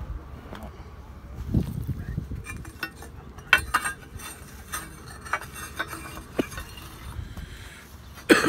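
Light clinks and knocks of loose objects rattling inside a moving car over a low road rumble, with a louder sudden sound just before the end.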